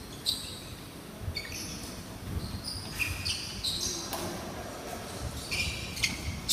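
Indoor court game in play: many short, high squeaks of shoes on the court floor, with dull thumps of a ball bouncing.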